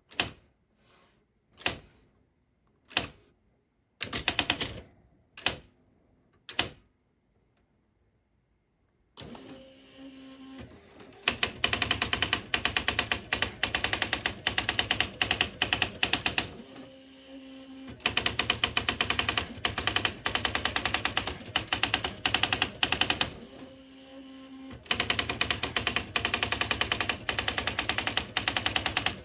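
Smith Corona SD 680 typewriter: a few single key strikes spaced about a second apart. Then its motor hums and the machine types in fast, even runs of strikes, three long runs with short pauses between them while the hum carries on.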